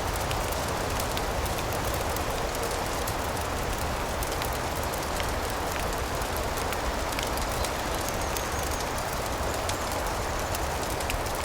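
Steady rain: an even hiss with a low rumble beneath and scattered faint clicks throughout.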